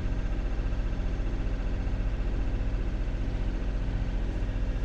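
Sailing yacht's engine running steadily while motoring, a fast, even low throb.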